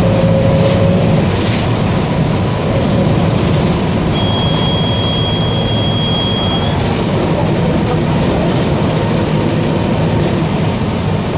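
Volkswagen 15-190 EOD city bus engine running steadily under way, with a continuous rumble and some rattling. A thin high tone sounds for about two and a half seconds midway.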